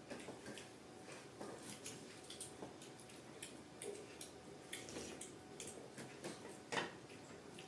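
Faint eating noises: irregular soft clicks and smacks of chewing, with one louder click about seven seconds in.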